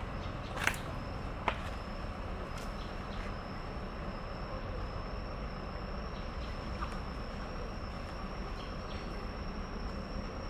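Steady high-pitched insect drone over outdoor background noise, with two sharp clicks within the first second and a half.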